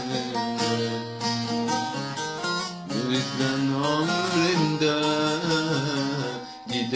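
Instrumental passage of a slow, sad Turkish song, with a plucked-string melody over a steady accompaniment.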